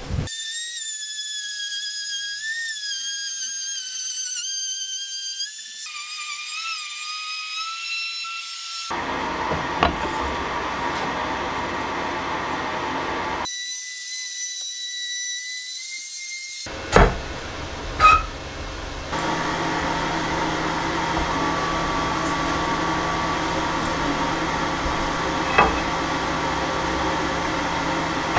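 Trim router running at high speed, a high whine whose pitch jumps at the cuts between clips, alternating with the rougher sound of the router cutting grooves into a wooden tabletop. Two sharp knocks come a little past the middle, followed by a steady motor sound with a low hum for the last third.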